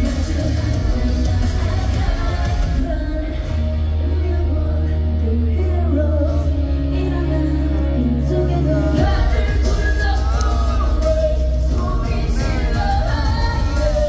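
Live K-pop concert music played loud through a large hall's sound system, with heavy, steady bass and sung vocals that come forward over the second half. Yells from the crowd rise over it.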